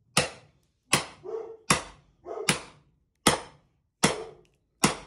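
Sledgehammer striking the back of an axe head set into an English willow round: seven sharp metallic blows, about one every 0.8 seconds, driving the axe in to split the round along its natural line. A dog barks between some of the blows.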